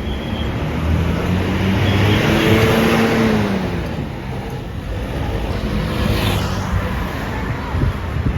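A bus passing by. Its engine note rises and then falls as it goes past about three seconds in, over a steady hiss of tyres on a rain-wet road, and a smaller swell of passing traffic follows near the end.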